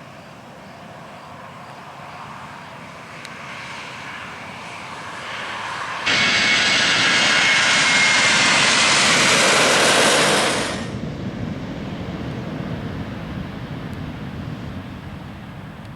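Jet aircraft engines roaring as a plane passes close: the noise builds, jumps suddenly to its loudest about six seconds in with a faint high whine in it, drops away sharply near eleven seconds, and leaves a lower rumble that fades.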